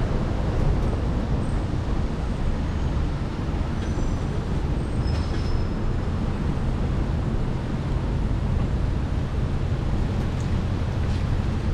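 Steady rumble and hiss of city street traffic, with a few faint high squeals around the middle.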